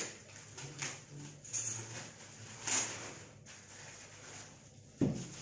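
Plastic wrapping crinkling and rustling in short bursts as it is cut and pulled off dumbbell weight plates, with a dull knock about five seconds in.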